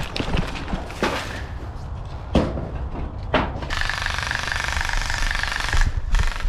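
An airsoft electric rifle fires a sustained full-auto burst of about two seconds, a rapid even buzz that starts about halfway through and cuts off sharply. A few single knocks come before it.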